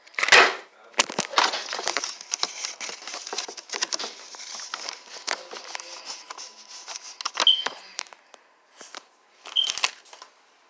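Plastic packaging crinkling and rustling as it is handled close by, with many sharp clicks and taps. The crinkling is dense for the first five seconds or so, then thins to scattered clicks.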